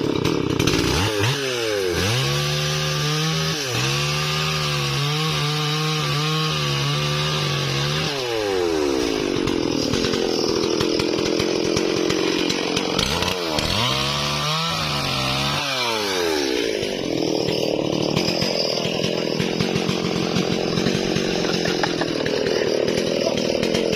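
Stihl MS 440 two-stroke chainsaw felling a tree. The engine revs up about a second in, holds high for several seconds and drops back, then revs up again around the middle. In between and afterwards it runs on under load with a steady noisy sawing sound of the chain cutting wood.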